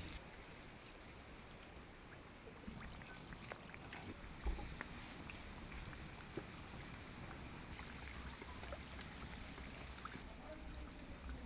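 Samosas frying gently in lightly hot oil in an iron kadai over low heat: a soft bubbling sizzle with scattered small pops and crackles. A single dull knock about four and a half seconds in is the loudest sound.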